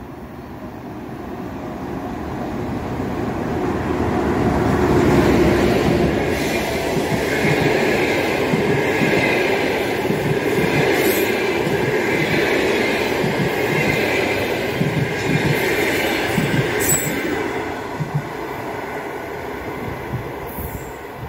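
A passenger train hauled by an EP1 electric locomotive passing close through a station: a rumble of wheels on rail with rapid knocks over the rail joints. It swells to its loudest about five seconds in, holds while the coaches go by, then fades as the train draws away.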